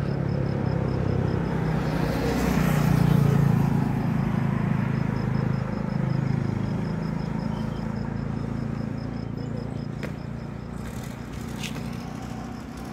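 A motor vehicle's engine running with a steady low hum. It grows louder about three seconds in, then slowly fades.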